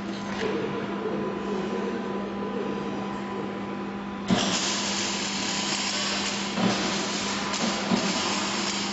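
Industrial machinery with a steady electric hum. About four seconds in, a loud rushing hiss starts suddenly and keeps going, with a few knocks.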